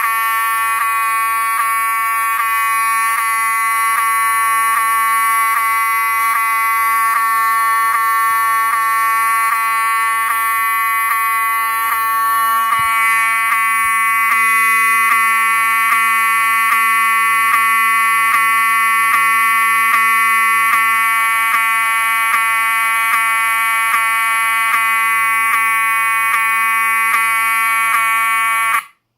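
Wheelock 7002T-24 horn strobe sounding continuously and very loud: a steady, buzzy electromechanical honk made by a hammer vibrating a metal disc. The tone has a brief skip about once a second, which the owner puts down to the strobe drawing power away from the horn as it flashes. The horn cuts off abruptly near the end.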